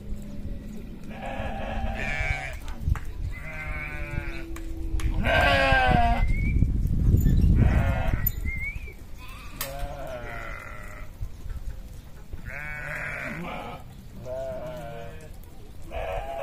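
A flock of sheep bleating, one call after another about every one to two seconds, some higher and some lower in pitch. A low rumbling noise swells under the calls midway.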